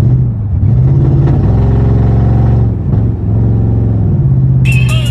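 2003 Ford Crown Victoria P71's 4.6-litre V8 pulling away under acceleration, its pitch stepping up and down as the automatic shifts, with a brief dip about three seconds in. The engine is running with a cylinder 6 misfire from a spark plug held in damaged threads.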